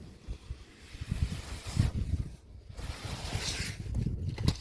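Wind gusting over the microphone, rumbling unevenly with brief lulls about two and a half seconds in and again near the end.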